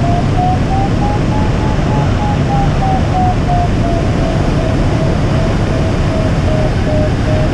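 Steady rush of airflow around a DG-800 sailplane's cockpit canopy while circling in a thermal, with the variometer's audio tone beeping throughout. Its pitch rises a little over the first two seconds and then slowly falls, the beeping signalling that the glider is climbing in lift.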